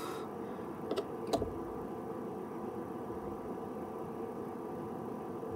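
Steady low hum with several constant tones, and two faint clicks about a second in as a plastic trimming tool turns the slug in a coil former of a band pass filter board.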